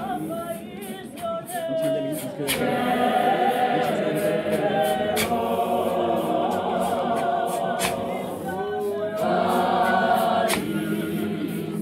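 A choir singing a cappella, several voices in harmony. A sharp percussive hit, like a clap or stamp, marks the beat about every two and a half seconds.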